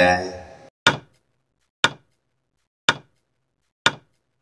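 Countdown timer sound effect: four sharp ticks, evenly spaced about a second apart.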